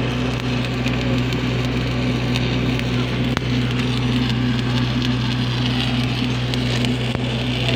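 Stick (SMAW) welding arc crackling steadily as a fillet weld is run on a steel beam in the flat position, over a steady low hum.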